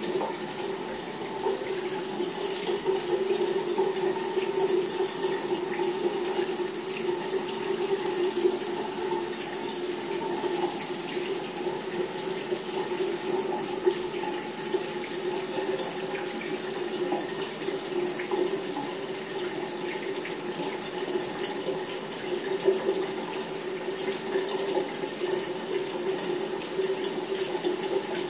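Shower running steadily, a continuous spray of water left on to warm up.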